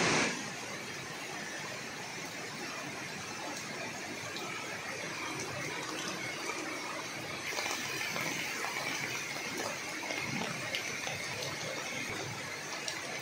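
Heavy rain pouring down, a steady even hiss that grows a little stronger about halfway through.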